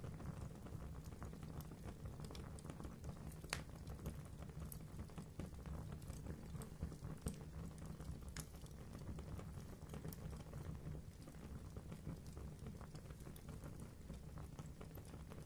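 Wood fire crackling in a fireplace: a steady low rumble of flames with many small pops and crackles, and a couple of sharper pops about three and a half and eight seconds in.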